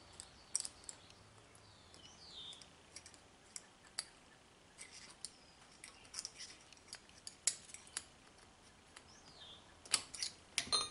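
Small steel lockwork parts of a Colt Walker revolver clicking and scraping as the hand is worked and forced up into its slot in the frame. The clicks come irregularly, with a quick cluster near the end.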